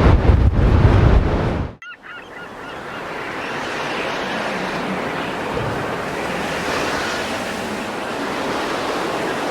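Wind buffeting the microphone, cut off suddenly, then a few short bird calls and steady breaking surf on a stormy sea.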